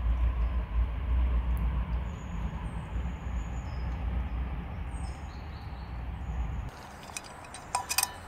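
A steady outdoor rushing noise with a deep rumble, with small birds chirping high above it several times. About six and a half seconds in, the rumble drops away, and sharp metallic clinks and rustling follow near the end as a stainless steel mug is taken out of a backpack.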